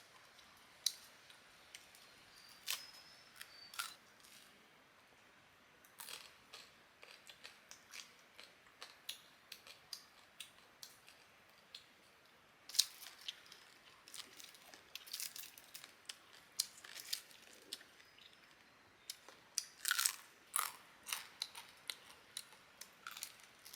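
Irregular sharp clicks and small crunches coming in clusters with short pauses, the strongest about 13 and 20 seconds in.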